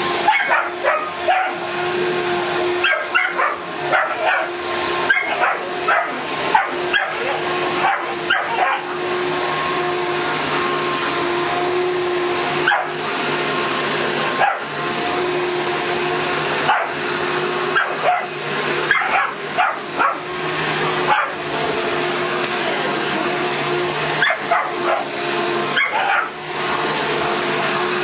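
Vacuum cleaner running with a steady hum while a Boston terrier barks and yips at it again and again, in quick runs of short calls.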